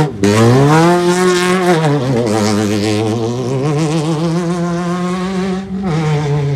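Off-road race vehicle's engine running hard at high revs with a wavering pitch. The pitch drops once about two seconds in, then holds steady until a short break near the end.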